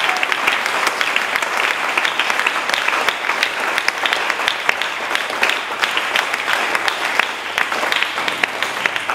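Congregation applauding: many hands clapping at once in a dense patter, easing off a little near the end.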